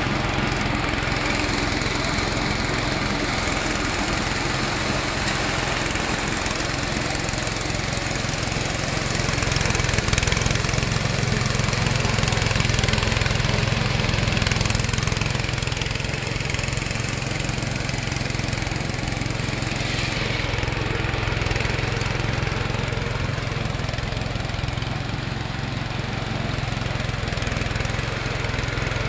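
Small single-cylinder petrol engine running steadily, belt-driving a pepper threshing machine that strips peppercorns from the vines being fed into it.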